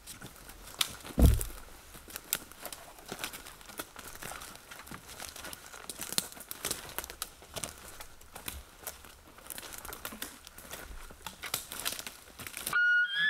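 Footsteps crunching and snapping through dry sticks and forest-floor debris, an irregular crackle of twigs with one heavy thump about a second in. Near the end a high whistled elk bugle call from a hand-held bugle tube begins.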